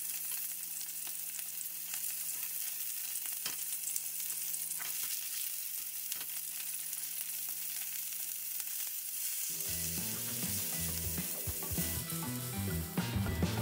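Beef steaks sizzling in hot oil in a nonstick frying pan, with a few light clicks of metal tongs as they are turned. Background music comes in about two-thirds of the way through.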